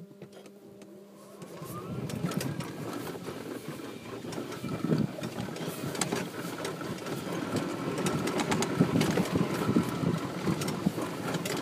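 Yamaha G29 golf cart pulling away and driving over grass. It grows louder about a second and a half in, with a brief rising whine, then runs with many short rattles and knocks from the body and windscreen over the uneven ground.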